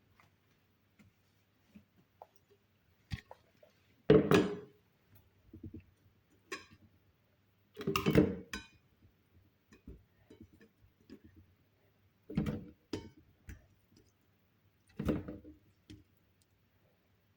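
Chopped ingredients being dropped and placed into a blender jar: four clunks spaced a few seconds apart, with small clicks and handling noises between them.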